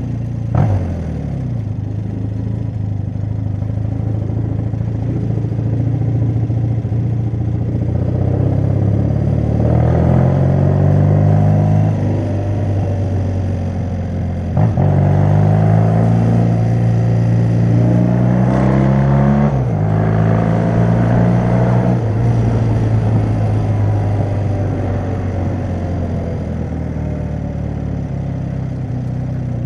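Motorcycle engine heard from the bike itself while riding, pulling up through the gears. Its pitch climbs, drops sharply at a shift about fourteen seconds in, climbs again and drops at another shift near twenty seconds, then settles into lower, quieter running.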